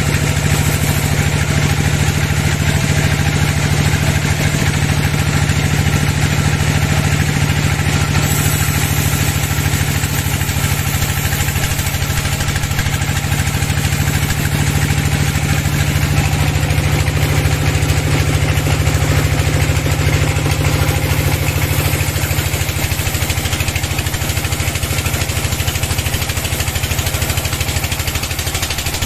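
Band sawmill running steadily while its blade cuts lengthwise through a teak log: a constant low machine hum with an even hiss of the blade in the wood over it. It eases slightly near the end.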